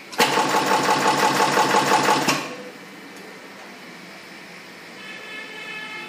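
EW-21D flexible flat cable crimping machine running a crimp cycle: a loud, rapid mechanical clatter of about seven strokes a second. It starts just after the beginning and stops abruptly after about two seconds.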